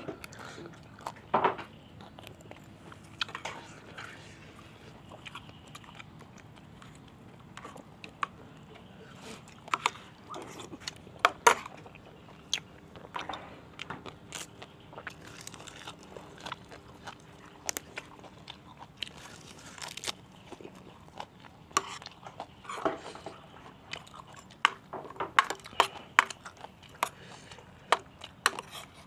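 A person eating crunchy food close to the microphone: irregular sharp crunches of bites and chewing of pounded santol salad and raw leafy greens.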